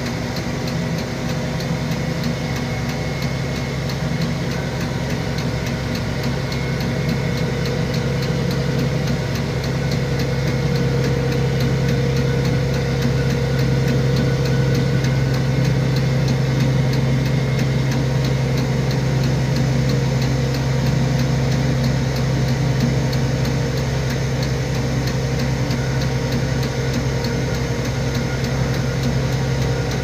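Manitex 50128 boom truck's engine running steadily to power the crane while it lifts a load, heard from inside the crane's cab, with a steady low hum that grows somewhat louder about eight seconds in.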